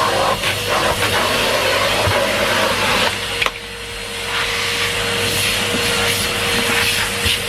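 Numatic Henry Pet tub vacuum cleaner running with a steady whine, the nozzle working over the floor with a few light knocks. About three and a half seconds in there is a sharp click, the sound drops and then builds back up over about a second.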